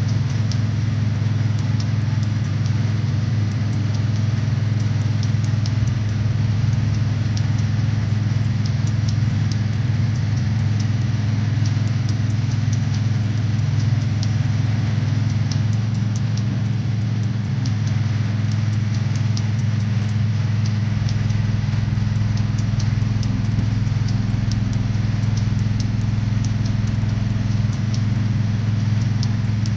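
A motor running steadily with an even low hum, faint light ticks scattered through it.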